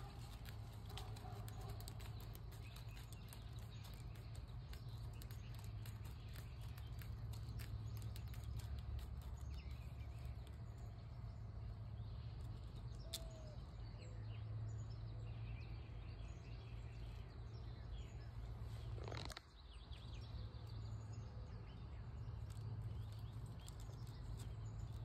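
Quiet outdoor background: a steady low hum with scattered faint clicks and a few short, faint bird chirps. A brief sudden sound comes about two-thirds of the way through.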